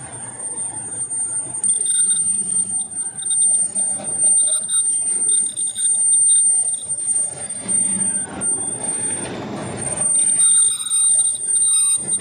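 Machine-shop noise from a large metal lathe turning a heavy cylindrical workpiece: a continuous rough running noise with a steady high whine over it. A shrill ringing tone comes and goes, about two seconds in and again near the end.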